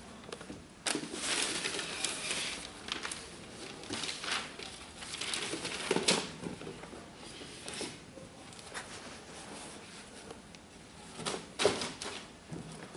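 Paper wrapping in a shoe box rustling and crinkling as the shoes are handled and lifted out, with a few light knocks.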